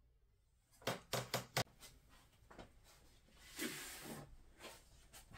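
A few light knocks and clunks in quick succession about a second in, as things are moved on a work table, then a brief rustle of paper being handled a few seconds later.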